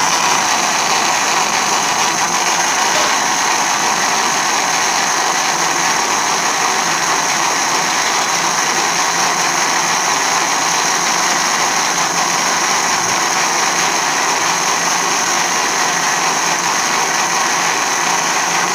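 Electric mixer running steadily at one speed, beating eggs and sugar together.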